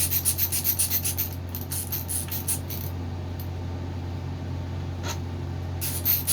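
A hand tool tightening a fastener on a Mantis mini tiller, making rapid rhythmic scratchy clicks at about five a second. The clicks stop about two and a half seconds in, and after a single click they start again near the end. A steady low hum runs underneath.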